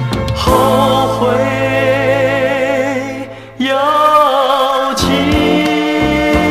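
Mandarin pop song playing from a vinyl record: held, wavering vocal notes over a sustained bass note, a short drop-out about three and a half seconds in, then the band comes back in with a steady beat.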